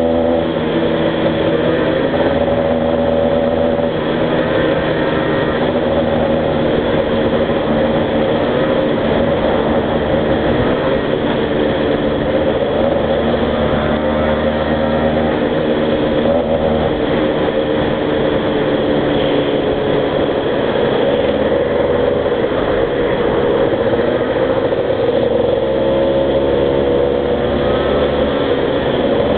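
Small two-stroke motorcycle and scooter engines running steadily under way. The pitch rises and falls gently with the throttle.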